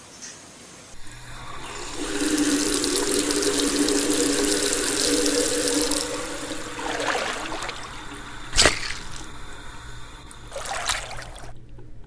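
Tap running hard into a wash basin, a steady rush of water with a low steady tone under it, easing to a lighter flow about halfway. A sharp knock about two thirds of the way in is the loudest moment, and the water cuts off suddenly near the end.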